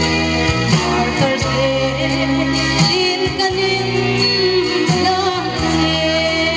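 A woman singing a song with instrumental accompaniment, held bass notes under her voice, which wavers on the long notes.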